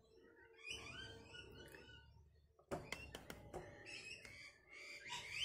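Camera being handled and repositioned: a few sharp clicks and knocks starting about halfway through, over faint high chirping.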